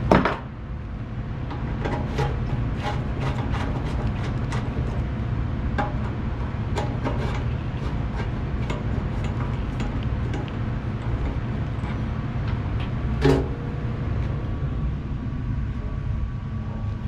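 Clicks and light knocks of a fuel petcock and screwdriver being handled against a rusty steel motorcycle gas tank as the petcock is worked loose, with a sharper knock at the start and another later on, over a steady low rumble.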